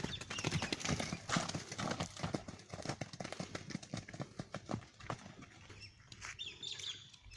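Hoofbeats of barefoot horses moving over wet ground: a quick, irregular run of thuds that thins out after about five seconds.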